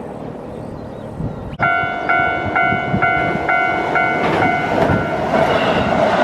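A steady rushing noise, then a sudden jump about a second and a half in to a railway level-crossing bell ringing about twice a second. A Keihan electric train's running noise builds up under the bell and carries on after it stops.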